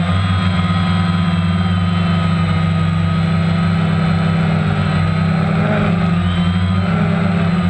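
Multirotor drone's electric motors and propellers running steadily, heard close up from the camera mounted on it: a loud steady hum with a higher whine that shifts in pitch now and then as it flies.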